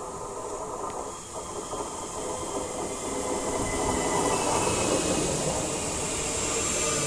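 SNCB AM08 (Siemens Desiro ML) electric multiple unit arriving and passing close by: wheels rolling on the rails with a steady electric whine of its traction equipment, growing louder about halfway through as the cars go by.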